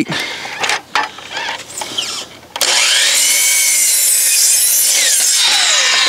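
A few knocks and scrapes of the 6x6 post being slid against the fence. Then, about two and a half seconds in, a DeWalt 12-inch sliding compound miter saw starts with a sudden loud whine and cuts through the post from its flipped side. Near the end the motor winds down, its pitch falling steadily.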